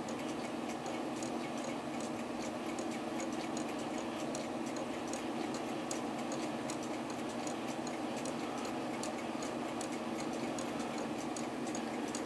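French pinwheel escapement of an antique jeweler's regulator clock movement ticking quickly and a little unevenly, the movement running under its weight without a pendulum fitted, over a steady low hum.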